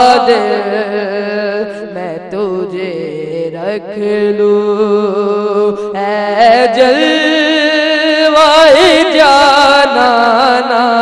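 A boy singing an unaccompanied Urdu naat into a microphone, drawing out long ornamented notes that waver and glide in pitch. The singing dips quieter for a few seconds, then swells up again about halfway through.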